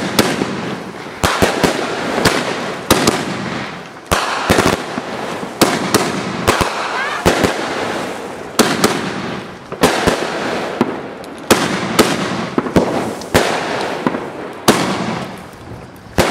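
Multi-shot consumer firework cake firing shot after shot, roughly one a second. Each shot is a sharp bang followed by hissing and crackling as the tails and stars burn out.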